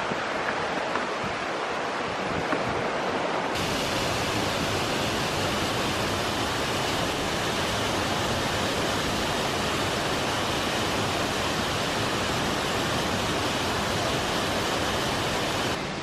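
Steady rushing roar of a waterfall. About four seconds in, it turns suddenly brighter and hissier, and it drops back just before the end.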